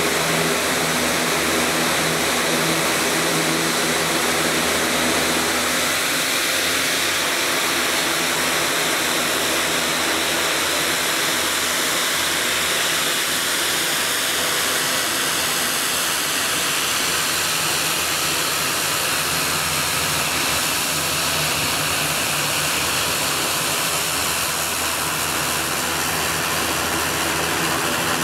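Dornier 328 airliner's engines running steadily as the aircraft taxis and turns on the apron: a constant, even engine noise with a hiss and a faint low hum that holds at one level.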